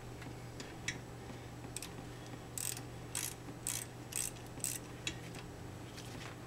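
Wrench tightening a brake caliper bleeder valve closed after gravity bleeding: a run of short metallic clicks, the strongest five coming about two a second in the middle, over a steady low hum.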